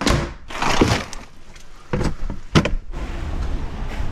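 A door being opened and shut, with bursts of rustling and handling noise and a sharp knock about two and a half seconds in.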